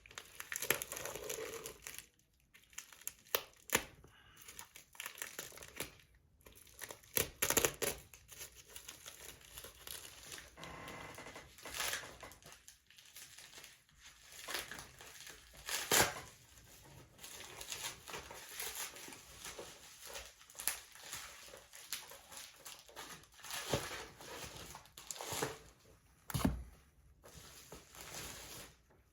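A package being torn open by hand: irregular crinkling and tearing of plastic or paper packaging, with scattered sharp clicks and knocks.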